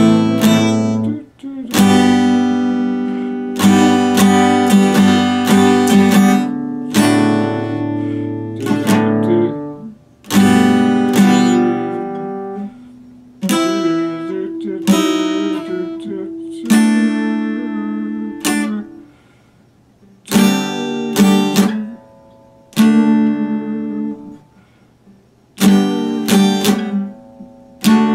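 Acoustic guitar played solo: chords struck and left to ring, each fading before the next, with a few brief pauses between phrases.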